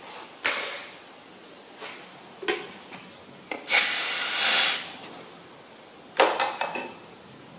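Aerosol spray can sprayed in one steady hiss of about a second, near the middle. A sharp metallic clink comes before it and a short clatter of knocks after it.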